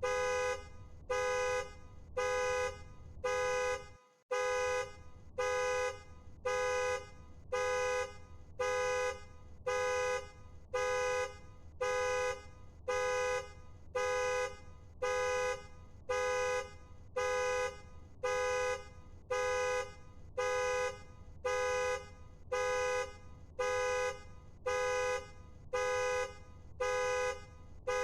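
Car alarm sounding the car's horn in a steady series of short two-tone honks, about one a second.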